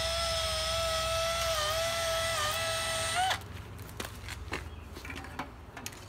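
Cordless drill spinning a Stripmeister wire stripper: a steady motor whine that sags slightly in pitch twice as the cable drags through the blades. It cuts off after about three seconds, followed by a few light clicks and knocks of the cable being handled.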